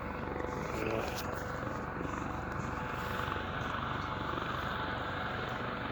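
Distant helicopter droning steadily.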